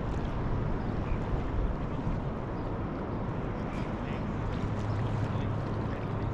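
Steady wind noise on the microphone at the water's edge. A low steady engine hum joins about four and a half seconds in.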